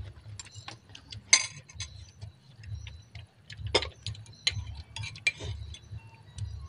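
Irregular light clinks and taps of spoons and fingers on ceramic bowls and plates while eating, with sharper clinks about one and a half seconds in and just before four seconds, over a low rumble.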